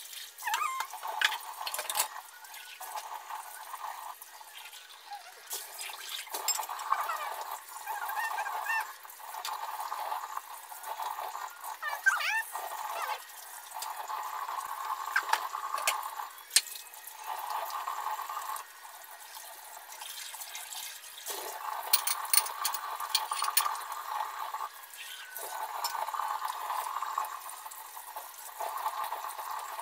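Washing dishes by hand at a sink: the tap's water runs in stretches of a few seconds and stops between them, with dishes clinking and knocking.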